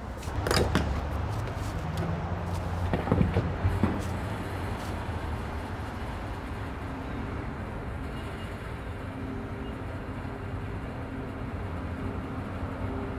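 Gas station fuel pump filling a car: a few clunks of the nozzle and car body in the first four seconds over a low rumble, then a steady low hum as the fuel runs.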